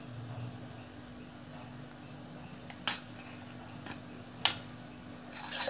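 Stainless steel puttu tube and its push rod clinking against a steel plate as steamed puttu is pushed out: two sharp metallic clinks, about three and four and a half seconds in, and more clatter starting just before the end. A steady low hum runs underneath.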